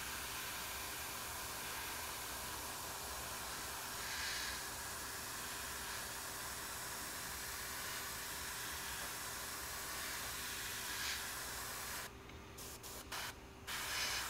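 Airbrush spraying paint with a steady hiss. Around twelve seconds in it cuts off and starts again several times in quick short spurts as the trigger is let up and pressed.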